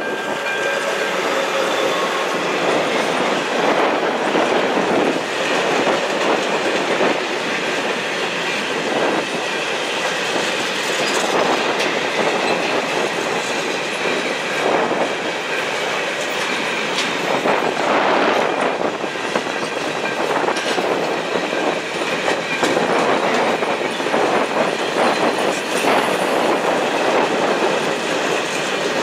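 Long freight train of empty hopper wagons rolling past close by: a steady rumble with wheels clacking over the rail joints throughout.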